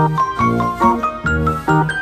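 Background music: a quick melody of short pitched notes, several a second, over a bass line.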